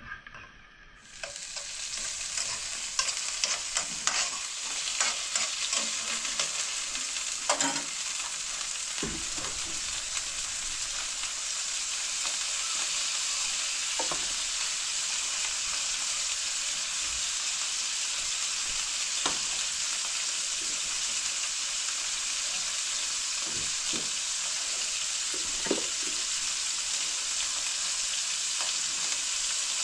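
Food sizzling as it fries in a pan: a steady hiss that starts about a second in. Occasional light knocks, most of them in the first third, run through it.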